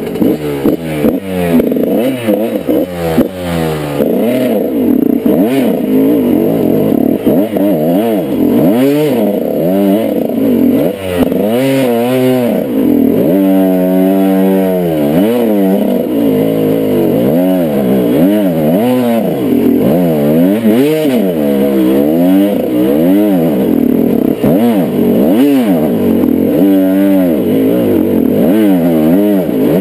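Dirt bike engine revving up and down over and over as it is ridden on a trail, the throttle opening and closing every second or two.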